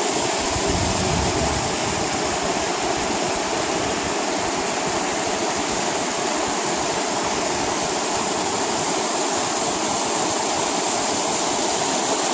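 Rain floodwater rushing over rocky ground: a continuous, even rush of running water with no breaks.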